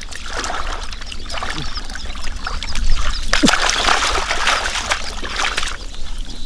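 Splashing and sloshing in shallow water as catfish are caught by hand, louder for a moment about three seconds in.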